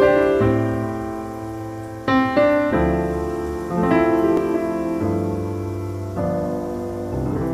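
Background piano music: slow chords, each struck and left to fade, a new chord every second or so.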